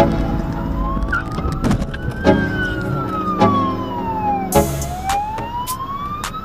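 Ambulance siren sounding a slow wail: its pitch rises over about two seconds, falls back over about two more, then rises again.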